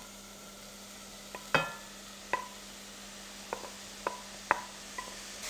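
Several light knocks of a wooden spatula against the bowl as chopped mushrooms are scraped into the pot, each with a short ring, the loudest about a second and a half in. Under them runs a faint sizzle of onion, celery and garlic sautéing in butter.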